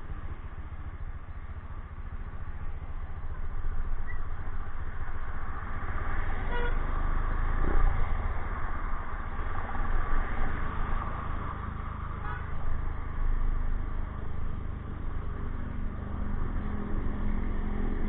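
Road traffic going by, a steady rumble that swells as vehicles pass, with a short vehicle horn toot about six and a half seconds in.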